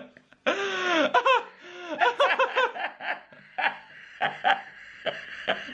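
A woman laughing hard with her mouth held open by a dental cheek retractor. A loud high squeal comes about half a second in, followed by a quick run of short laughs that eases into breathier, pulsing laughter.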